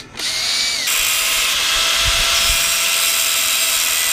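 A cordless drill runs briefly while boring a small steel tab clamped in a vise. About a second in, an angle grinder starts cutting small steel parts: a loud, steady hiss with a faint whine running under it.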